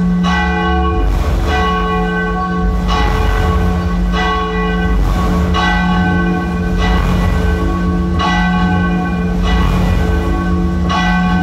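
Bell tolls played loud through a large dance sound system, one about every 1.4 seconds, over a steady low drone and deep bass.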